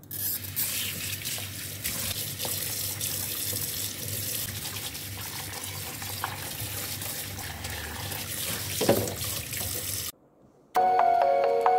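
Kitchen tap running into a stainless steel sink while plastic food containers are rinsed by hand: steady splashing water with a few light knocks, and a louder splash near the end. The water sound cuts off about ten seconds in, and after a brief pause background music begins.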